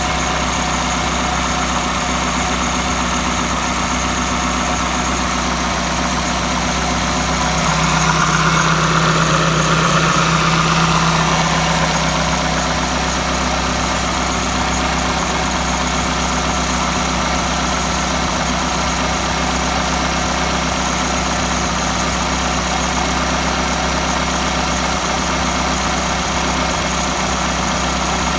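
Renault F4R 2.0-litre four-cylinder petrol engine idling steadily, getting a little louder for a few seconds around eight to twelve seconds in.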